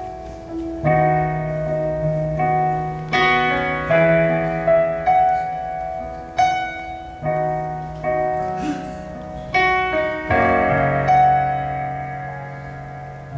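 Slow piano music: chords struck about once a second, each ringing on and fading before the next.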